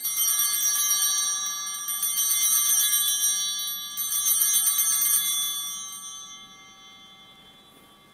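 Altar bells shaken rapidly, a bright multi-bell jingle that dips briefly twice and then rings away over about two seconds. They are rung at the elevation of the chalice just after the consecration, marking that moment of the Mass.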